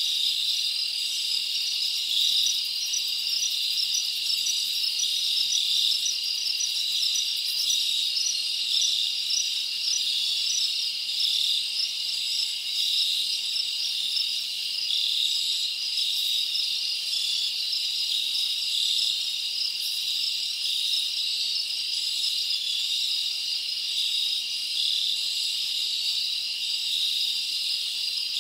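Dense chorus of chirping insects such as crickets, high-pitched and unbroken, with a fast pulsing shimmer.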